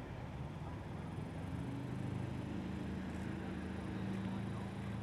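A steady low engine hum, a vehicle or machine running somewhere near, growing a little louder over the first two seconds, over faint outdoor background noise.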